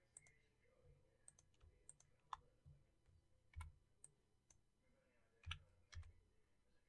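Faint, scattered clicks of a computer keyboard and mouse, a dozen or so irregular clicks with a few louder ones near the middle and end.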